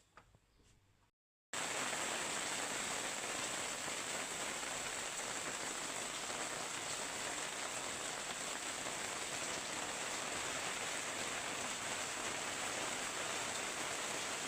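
Rain falling steadily, an even hiss that cuts in suddenly about a second and a half in.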